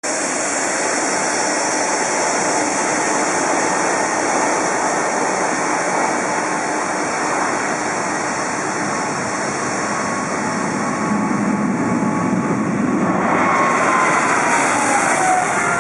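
Boeing 777-200LR's twin GE90 turbofans at takeoff thrust during the takeoff roll: a steady jet rush that grows louder over the last few seconds, with a whine that falls in pitch as the aircraft passes.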